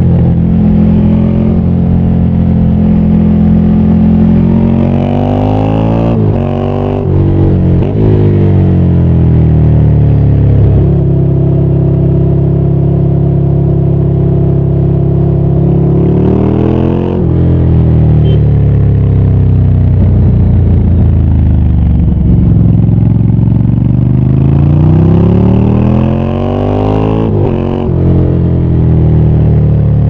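Ducati Scrambler 800's air-cooled L-twin engine under way: the revs climb and then drop sharply at gear changes several times, hold steady for a stretch in the middle, then fall away and climb again before another quick shift near the end.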